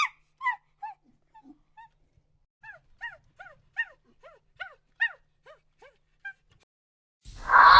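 A dog whimpering: a string of short, high yelps, each falling in pitch, a few to the second.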